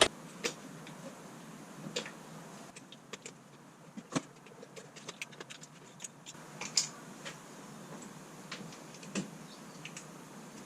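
Irregular light clicks and snaps of spark plug wires and their looms being pulled off the engine by hand, a few a second at most, with a louder click about four seconds in.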